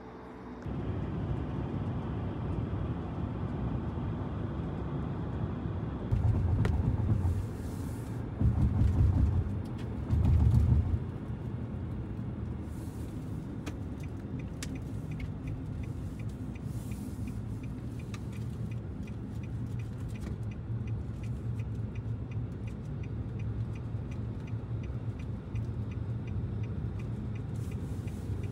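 Steady low rumble of a car's engine and tyres heard from inside the cabin while driving, with three louder swells of low rumble between about six and eleven seconds in. Around the middle, the turn indicator ticks evenly for several seconds.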